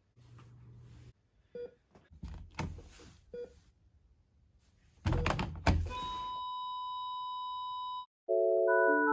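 Heart-monitor sound effect: short single beeps about every two seconds, then a loud burst of noise about five seconds in. A steady high flatline tone follows for about two seconds and cuts off abruptly, and music starts just after.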